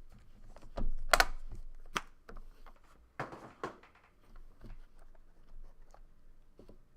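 Trading cards and their plastic holders being handled on a table: a string of irregular clicks, taps and short rustles, the loudest about a second in.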